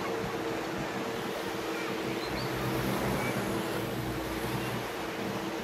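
Small waves washing onto a sandy beach, with a steady low engine hum underneath.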